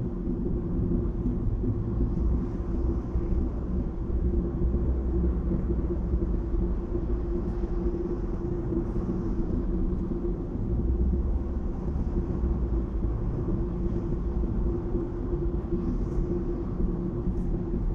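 Car driving at highway speed: a steady low rumble of tyre and engine noise with a constant hum.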